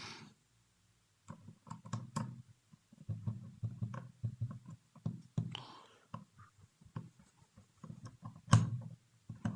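A screwdriver driving the small mounting screws back into a laptop hard drive, not tightened hard: scattered light clicks and scrapes of metal on metal and plastic, with handling knocks, and one sharper click near the end.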